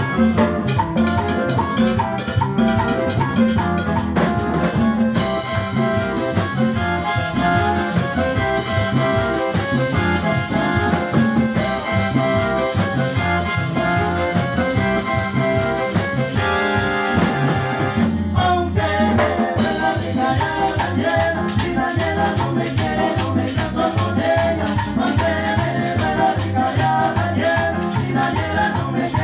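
Live tropical dance band playing salsa-style music with brass, drum kit and percussion, a singer's voice in places.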